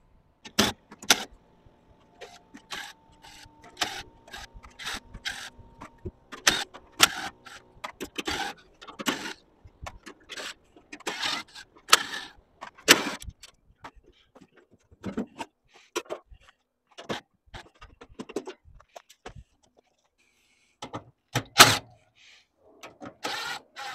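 Cordless driver spinning out sheet-metal screws from a generator's enclosure panels in short bursts, among many clicks and clanks of tools, screws and panels being handled.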